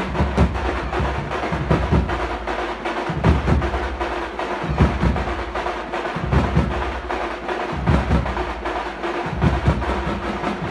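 A drum troupe playing: fast, dense stick strokes on hand-held drums over heavy bass-drum beats that come about every second and a half.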